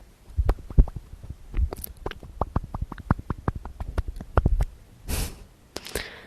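Tapping on objects close to the microphone: a quick, uneven run of taps and soft knocks, about five a second at its fastest, that stops after about four and a half seconds. Then a short rush of noise.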